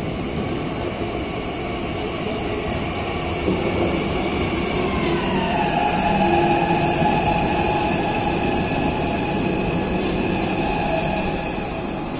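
Barcelona metro train pulling into a station: a steady rumble of wheels on rail under an electric whine. About five seconds in, the whine falls in pitch as the train slows, then holds steady as it rolls along the platform.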